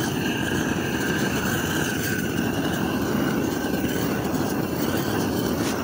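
Gas roofing torch burning with a steady low rushing noise as its flame dries the old bitumen roof surface before new torch-on felt is laid.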